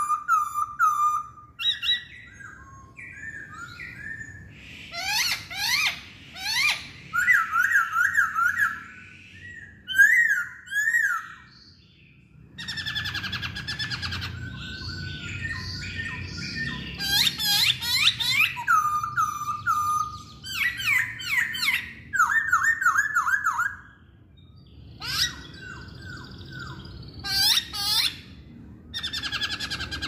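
Black-throated laughingthrush (Poksay Hongkong) singing a loud, varied song: bursts of quick whistled notes, many of them sharply falling slurs repeated in fast runs. It breaks off twice, about twelve seconds in and near twenty-four seconds, then starts again.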